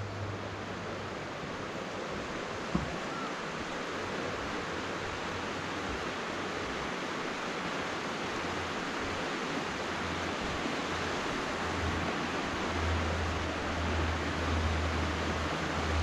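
Fast-flowing mountain stream water rushing steadily, an even hiss with no pauses. Low wind rumble on the microphone comes and goes and grows stronger near the end, and there is one brief knock about three seconds in.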